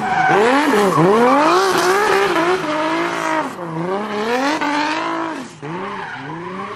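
BMW E46 drift car's engine revving hard, its pitch swinging up and down over and over, while the spinning rear tyres squeal and smoke in a drift.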